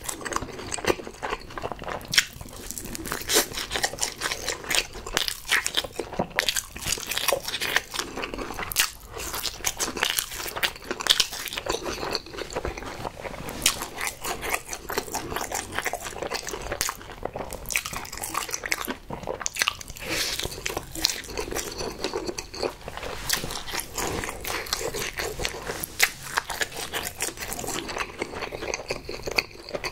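Close-miked mouth sounds of biting and chewing a crispy, sauce-coated breaded pork cutlet (Pikachu-shaped donkatsu), with continuous irregular crunching and wet smacking.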